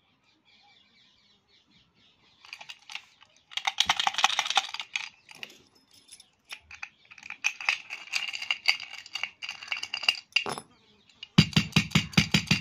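Metal padlock rattling and clinking in the hand in quick runs of clicks, in three spells; the last, about a second from the end, is the loudest and heavier, like the lock being knocked about as it is handled.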